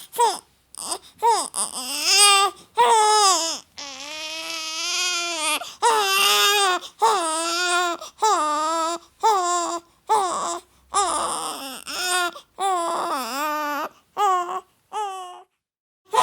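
Baby crying in a run of short, wavering wails, with one longer held cry about four seconds in.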